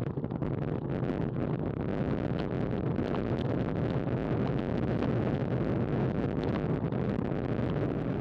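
Steady wind rushing over the microphone of a camera on a road bike moving at about 22 mph, mixed with the tyres' road noise on asphalt.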